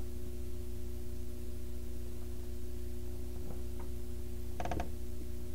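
Steady low electrical hum, with soft handling noises as the pages of a hardcover picture book are turned, and one brief squeak a little after halfway.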